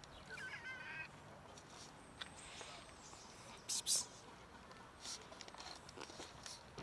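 Light rustling and soft steps of cats moving over gravel and dry leaves. There is a short warbling chirp just after the start, and two brief sharp hissy bursts about four seconds in.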